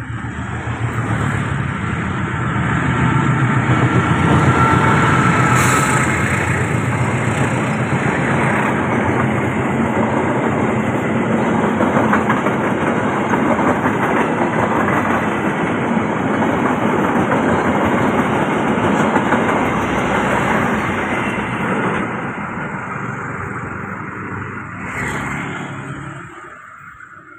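Argo Parahyangan express passenger train passing at speed: the diesel locomotive goes by first, loudest in the first few seconds, then the long run of coaches clatters over the rails and the sound fades away near the end.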